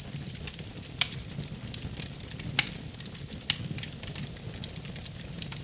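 Fire burning: a steady low rush with constant light crackling and three sharp pops, the loudest about a second in.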